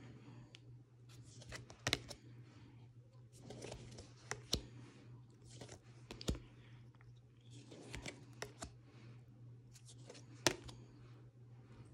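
Glossy oracle cards being slid off a pile and laid down one at a time: soft swishes of card on card with scattered light taps, the sharpest about ten seconds in.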